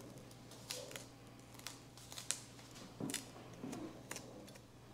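Chef's knife slicing a fillet off a speckled trout along its backbone on a plastic cutting board: faint, scattered crackles and scrapes as the blade cuts through scales and small bones.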